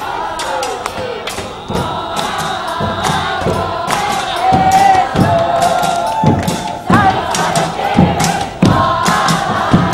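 Music with singing voices and frequent thumps, mixed with the noise of a large outdoor crowd.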